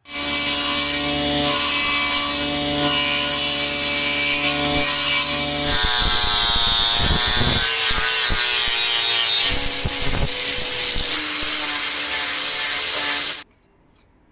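Table saw running and cutting through the willow of a cricket bat, with a steady hum. About six seconds in it gives way to an angle grinder with a sanding disc: its whine rises as it spins up, then it sands the bat's wood. The noise cuts off abruptly near the end.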